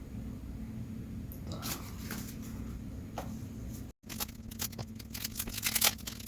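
1990 Donruss cardboard baseball cards being flipped and slid against one another in the hands: a series of short rustling swishes, sparse at first and coming thick and fast in the second half. The sound drops out completely for a moment about four seconds in.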